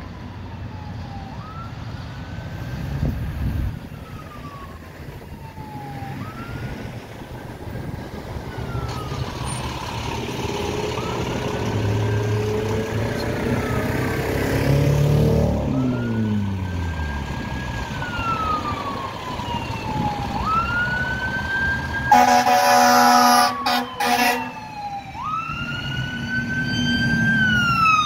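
Fire engine's siren in a slow wail, rising and falling every four to five seconds and growing louder as the truck approaches, over the truck's engine pulling up through its revs. A loud blast on the air horn comes about 22 seconds in.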